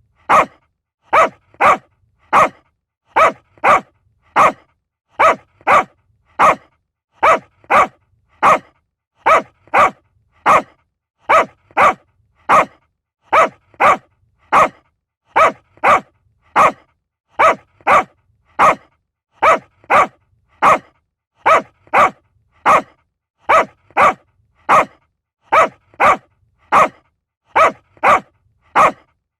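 Small dog barking: short barks, mostly in quick pairs, repeating at a steady, even pace about once a second.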